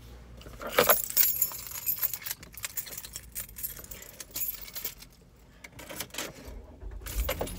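Keys jangling and clinking in irregular bursts, loudest about a second in, with handling knocks as someone moves about in a car seat. A low rumble swells near the end.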